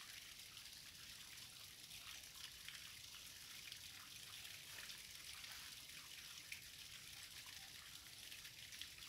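Faint, steady trickle of water: a thin stream running down a rock face and splashing into a pool.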